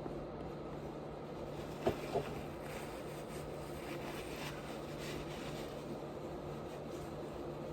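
Close-up mouth sounds of a person eating: quiet chewing, with two sharp smacks about two seconds in, over a steady low hum.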